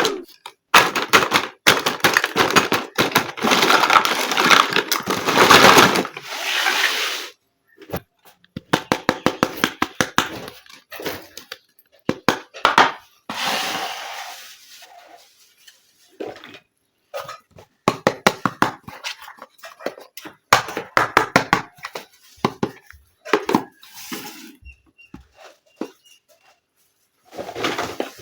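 Hands unboxing a plastic toy kitchen play set. Packaging crinkles and rustles in several long stretches, with many small clicks and taps of plastic pieces being handled.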